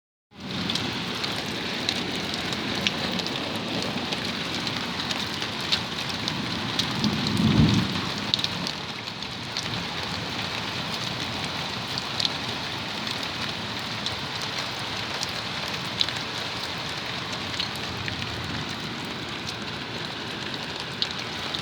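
Rain falling steadily, with scattered sharp ticks of drops hitting a hard surface. A low rumble swells and fades about seven seconds in.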